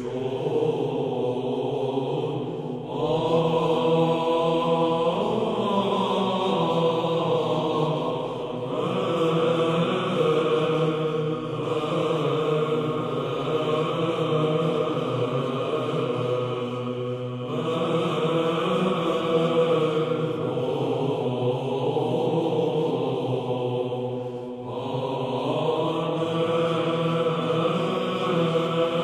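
Greek Byzantine choir chanting a slow, melismatic hymn in the plagal second tone, the melody sung over a steady held drone note (ison). The voices move in long sustained phrases, with brief breaks between them every several seconds.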